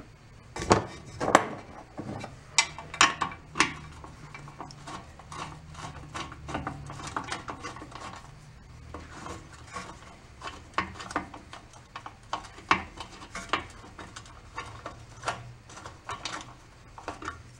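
Hand ratchet and socket extension clicking and clinking against the metal of an old outboard motor's powerhead as its bolts are worked at: irregular sharp metal clicks, the loudest few in the first four seconds. A faint steady low hum runs underneath.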